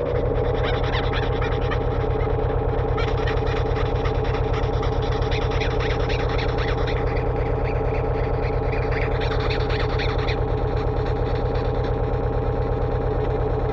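Electronic synthesizer sound: a steady low drone with a rapid, even pulse, overlaid by a chattering high texture that drops away about ten seconds in.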